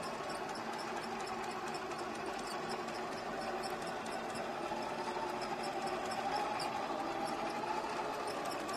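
Small motor of a scale-model tractor tug running steadily as it pushes its thruster against a model tanker, a whine whose pitch rises a little about halfway through as thrust builds.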